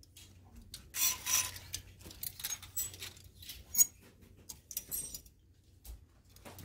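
Clear plastic clothes hangers clacking and scraping as they are slid one by one along a chrome clothing-rack rod, in a string of short clicks that pauses near the end.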